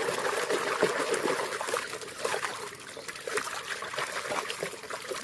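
Water trickling and splashing over a muddy toy tank as it is washed, with many small ticks and knocks of the toy being handled.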